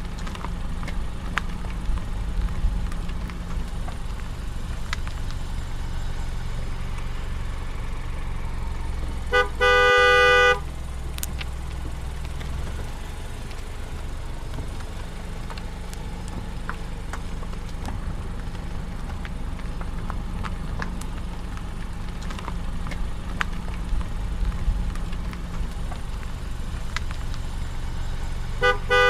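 Steady engine and road noise inside a moving car, with a car horn sounded twice: a short toot followed by a blast of about a second, roughly nine seconds in, and the same toot-then-blast again at the very end.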